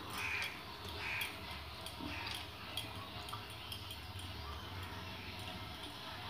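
Eating by hand: chewing and wet mouth smacks, strongest in the first two seconds, while fingers mix rice and fish on a steel plate with faint small clicks.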